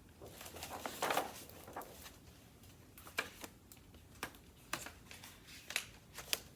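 A picture book being handled: a soft paper rustle about a second in, then a string of irregular light clicks and taps.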